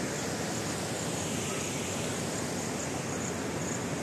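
Steady rush of fast-flowing water pouring from a dam's spillway and over a rocky riverbed, heard as an even, unbroken noise.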